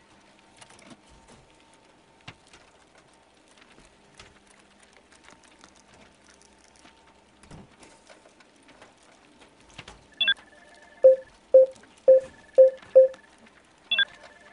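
Mostly very quiet with faint scattered ticks, then electronic interface sound effects: a short beep about ten seconds in, five quick pitched pops in a row, and another beep near the end.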